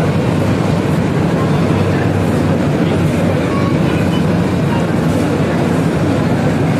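Air-conditioned Mumbai suburban local train running, a loud steady noise with no breaks.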